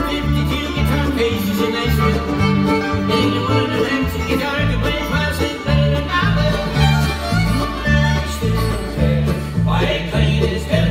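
Live bluegrass band playing an instrumental break led by fiddle, over rolling five-string banjo, strummed acoustic guitar and a steady upright bass beat.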